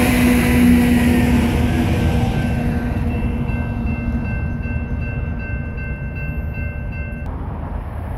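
Union Pacific diesel freight train rumbling by at close range. From a few seconds in, a steady train horn chord is held for about five seconds and cuts off abruptly near the end.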